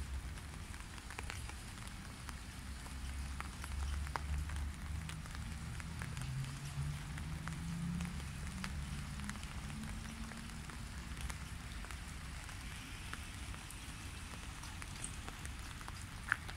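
Light rain falling into a puddle: many scattered drop ticks over a steady hiss, with a low rumble underneath. There is one sharper click near the end.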